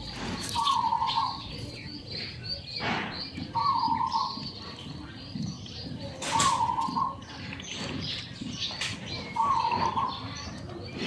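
Birds calling: a short call repeats about every three seconds over continuous higher chirping, with scattered clicks and knocks.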